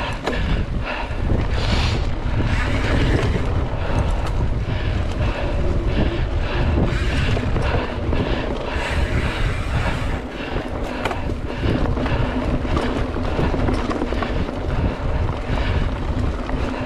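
Mountain bike ridden fast over rough trail: wind rumbling over the microphone, with the bike rattling and knocking over the bumps.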